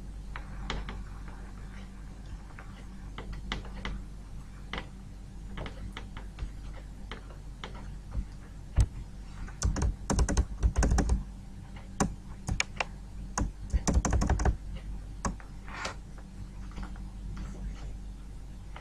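Computer keyboard clicking: scattered key clicks, with two quick flurries of rapid clicks about ten and fourteen seconds in, over a low steady electrical hum.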